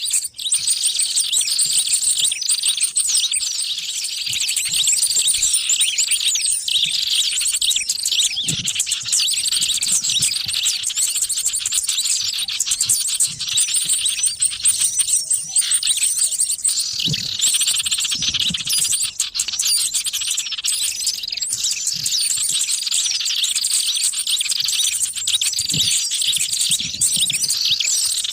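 A dense, noisy chorus of many small birds chirping and twittering together without pause. It is a lure recording (suara pikat) of the kind played to draw wild small birds in.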